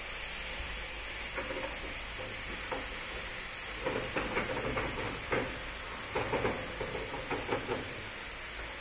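Short knocks and rattles of metal parts as an orthopedic operating table's extension arm is moved and adjusted by hand, clustered in the second half, over a steady high hiss.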